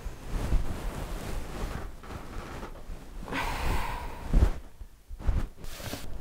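Duvet and bedding rustling as a person shifts and turns in bed, with a few soft thumps of movement on the mattress and a breathy exhale about three and a half seconds in.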